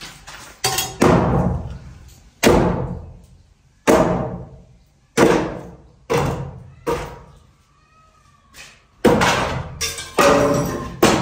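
Heavy blows struck on timber while wooden posts are being knocked out of a building under construction: about ten of them, irregularly spaced, each a sharp crack with a ringing tail that dies away over about a second.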